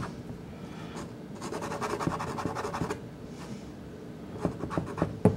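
Soft pastel stick scratching across Sennelier La Carte pastel card in short strokes, loudest for about a second and a half in the middle, with a few light clicks near the end.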